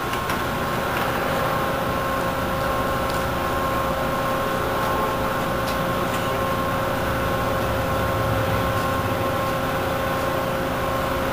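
Caterpillar forklift running steadily while carrying a heavy load on a boom jib: an even engine rumble with a steady high whine over it.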